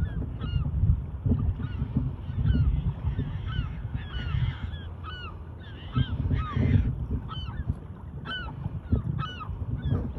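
A large flock of seabirds calling over open water: many short, hooked calls overlapping with no break. Underneath runs a steady low rumble.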